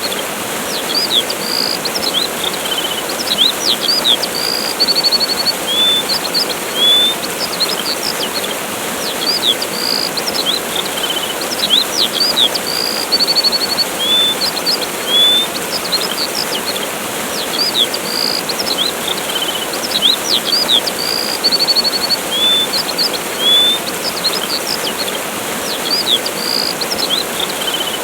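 Waterfall's steady rush with birds chirping over it: short rising and falling chirps and a quick trill that comes back about every nine seconds.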